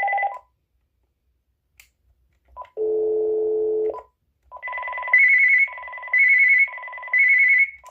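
Uniden DCT648-3 cordless phone base sounding electronic tones: a low tone held about a second, then a warbling electronic ring of alternating high and lower pitches in three bursts, a ringer setting being previewed.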